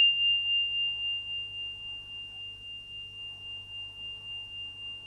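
Metal chakra tuning pin for the heart chakra, tuned to F, ringing after being struck: a single pure high tone that slowly fades with a slight regular pulsing.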